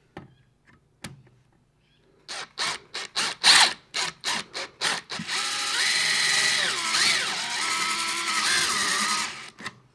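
Cordless DeWalt drill drilling out a rivet. It starts in a string of short bursts, about three a second, then runs steadily for about four seconds, its pitch dipping twice as the bit bites into the rivet.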